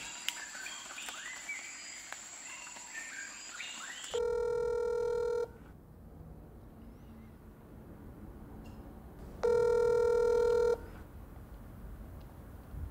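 Telephone ringback tone on the calling end of a phone line: two rings, each a little over a second long, about five seconds apart, the first about four seconds in.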